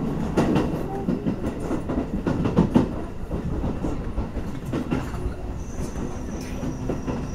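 Shin-Keisei 8800-series electric train running, heard from inside the driver's cab, its wheels clacking over the points and rail joints, with a cluster of clacks about two to three seconds in. A faint high whine comes in about five and a half seconds in.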